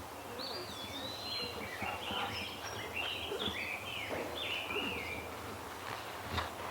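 A songbird singing a run of quick, varied warbling phrases for about five seconds, over steady outdoor background noise.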